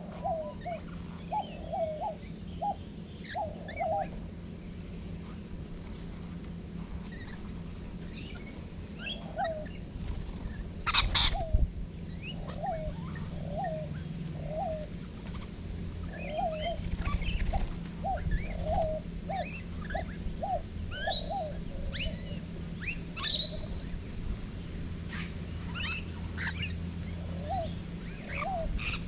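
A flock of rainbow lorikeets and other backyard birds calling while feeding on the ground: a steady run of short, low, repeated calls mixed with scattered thin higher chirps and twitters, and one loud harsh burst about eleven seconds in. A steady high-pitched drone runs underneath.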